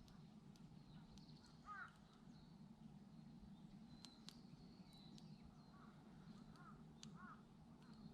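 Faint crow caws, a few short calls about two seconds in and again near the end, over quiet outdoor ambience with scattered light ticks.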